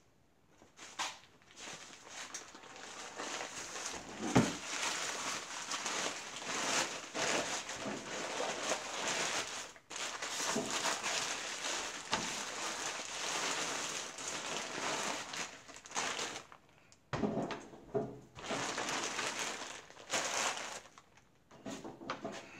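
Plastic bag crinkling and rustling as a lump of clay is worked out of it, with a hard thump about four seconds in.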